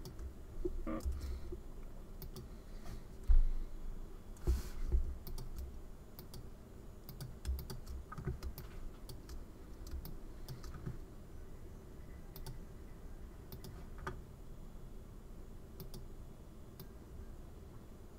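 Computer mouse clicks and keyboard key presses, scattered and irregular, with a low hum underneath and a few louder dull thumps, the loudest about three seconds in.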